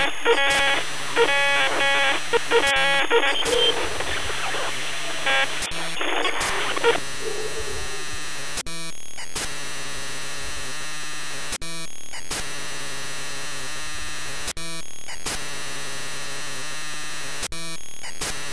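Steady hiss of analogue TV static, broken by brief dropouts about every three seconds. For the first several seconds, garbled, muffled pitched sounds come through the static and then stop.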